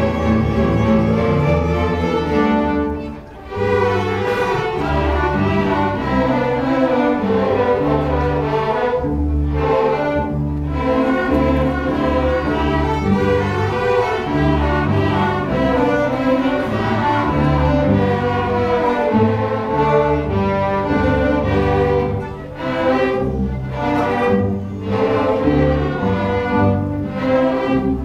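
Seventh-grade string orchestra playing: violins, cellos and double basses bowed together, with a strong low line from the cellos and basses. The music breaks off briefly about three seconds in, then carries on.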